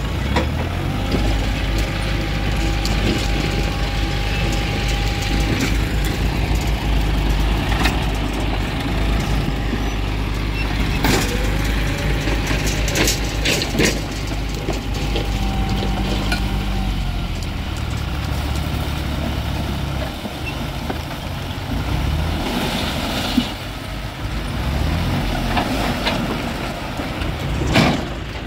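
John Deere tractor engine running steadily under load while the hydraulic tipping trailer raises its bed, with a steady whine over the engine until about two-thirds through, when the engine note changes. Soil and rocks slide off the tipped bed, with scattered knocks and clatter.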